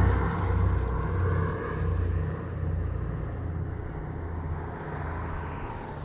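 Douglas C-47/DC-3's twin Pratt & Whitney R-1830 radial engines droning low and steady as the aircraft flies away after a low pass, fading gradually.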